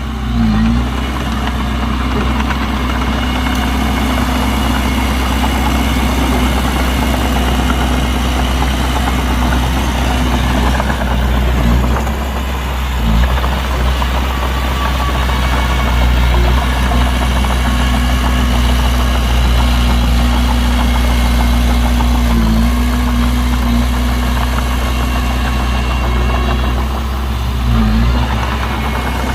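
Heavy diesel engine of earthmoving machinery running steadily at a constant speed, with a few brief knocks.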